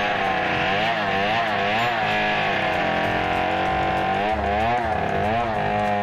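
Two-stroke chainsaw cutting lengthwise into a felled coconut log, running loud under load, its engine pitch swinging up and down in quick waves as the saw bogs and frees in the cut, steadier through the middle.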